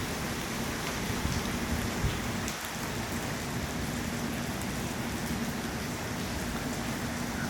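Steady rain falling, with a faint steady low hum underneath and a brief thump about two seconds in.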